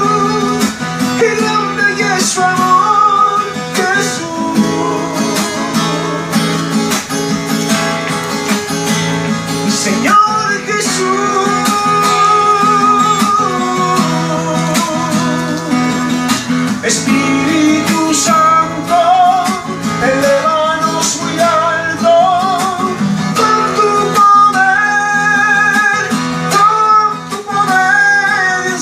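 Strummed acoustic guitar playing an instrumental interlude of a worship song, with a wavering lead melody over the chords.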